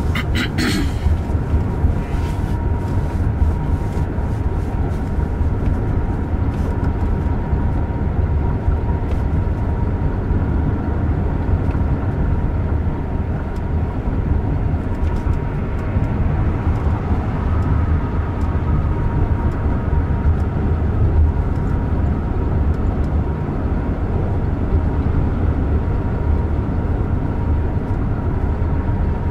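Steady road and tyre noise with wind rush inside the cabin of a Jaguar I-PACE electric car cruising at speed, a low rumble with no engine note. A faint steady high hum sits above it.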